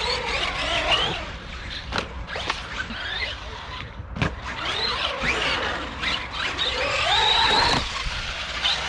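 Arrma Granite RC monster truck's brushless electric motor whining, its pitch rising and falling again and again as the throttle is worked. There are sharp knocks about two seconds in and again after four seconds as the truck hits the concrete of the skate bowl.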